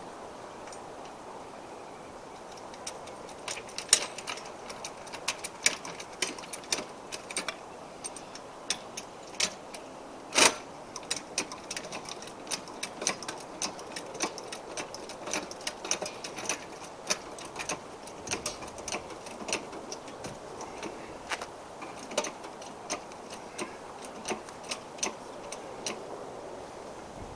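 A socket ratchet clicking, with sharp irregular metallic clicks a few times a second, as the front wheel's lug nuts are worked loose, with one louder metallic knock about ten seconds in.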